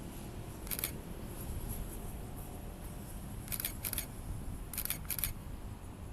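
Five short, sharp clicks, the first alone about a second in and the other four in two quick pairs, over a steady low rumble of wind.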